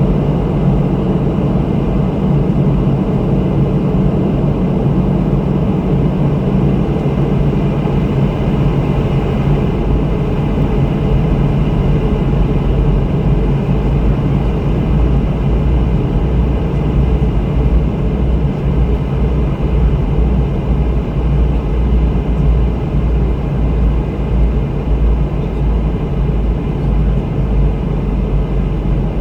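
Steady in-flight noise of a Boeing 717 on its descent: an even rush of airflow over a low, steady hum from its two rear-mounted Rolls-Royce BR715 turbofans.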